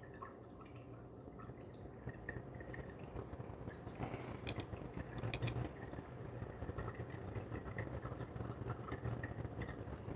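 Faint clicks and taps of small metal lock parts being handled as a Mul-T-Lock Interactive dimple lock is taken apart, over a steady low hum. There are a couple of sharper clicks about halfway through.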